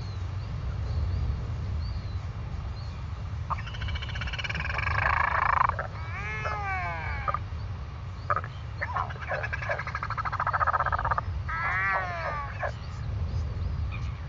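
Northern royal albatross sky-calling with its bill pointed skyward. There are two rounds, starting a few seconds in, each a harsh buzzing rattle followed by a wavering, whistling wail. Wind rumbles on the microphone underneath.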